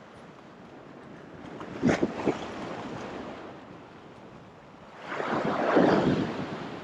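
Sea swell surging and washing against a rock ledge, with a larger wave washing up over the rocks about five seconds in. A couple of short knocks sound about two seconds in.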